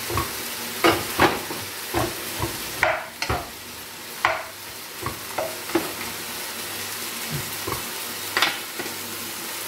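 Wooden spoon stirring chopped kale in an enamel cooking pot, with irregular knocks and scrapes against the pot over a steady frying sizzle.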